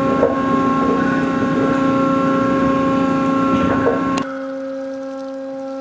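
Heavy anchor chain of a Wasp-class amphibious assault ship running over the windlass chain wheel: a loud, steady rumble with a humming tone over it. About four seconds in the rumble cuts off suddenly, leaving only the hum.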